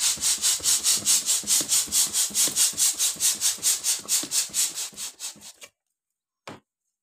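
Hand balloon pump being worked quickly, each stroke a puff of hissing air, about four or five strokes a second, as it inflates a latex balloon. The pumping stops about five and a half seconds in, and a single short knock follows about a second later.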